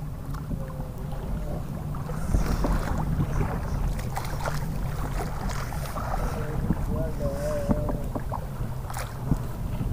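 Wind rumbling on the microphone over shallow sea water, with scattered small splashes and water lapping.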